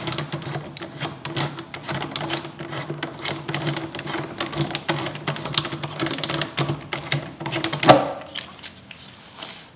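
Rapid, irregular metallic clicking of a hand rivet-nut (nutsert) setting tool being worked after a rivet nut has been crushed into the car body, over a steady low hum. About eight seconds in there is one sharp knock, and the hum stops.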